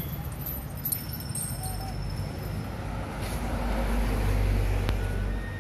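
A motor vehicle's engine running with a low rumble, growing louder about halfway through, with a few light clicks over it.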